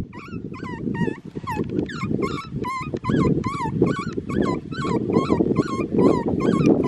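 An animal giving a rapid string of short, high whining yelps, about three a second, each call rising and falling in pitch. A steady low noise runs underneath.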